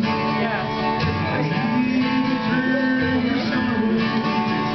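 Acoustic guitar played solo in a steady rhythm: strummed chords over a low bass note that comes round about once a second.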